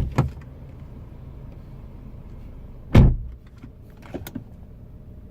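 BMW 320 car door: a couple of latch clicks at the start, then the door shut with a solid thump about three seconds in, over a steady low hum.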